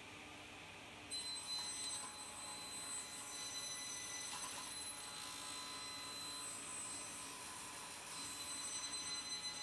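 Sliding table saw switched on about a second in, its motor and blade then running idle with a steady high whine of several tones.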